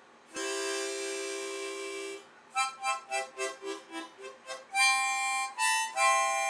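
Harmonica played solo, a short tune: a long held chord lasting about two seconds, then a run of quick short notes, then a few longer held notes.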